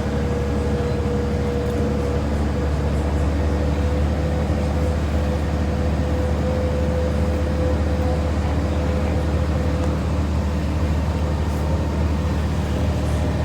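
Boat engine running steadily under way, heard on board as a constant low rumble with a steady hum tone over it.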